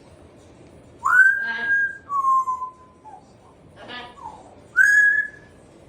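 African grey parrot whistling. First comes a whistle that rises and holds level, then a lower whistle that slides slightly down; after a short voice-like call, another rising whistle ends the run.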